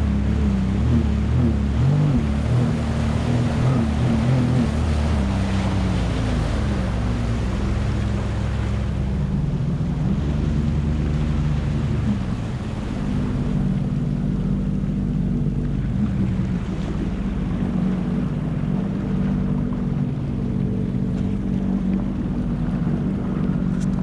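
Personal watercraft (jet ski) engine running under way, its pitch rising and falling with the throttle for the first half and then holding steadier, over steady wind and water rush.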